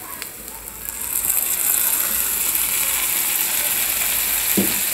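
Mutton keema sizzling in a frying pan as whisked yogurt is poured onto it. The sizzle jumps up about a second in, then holds steady and loud.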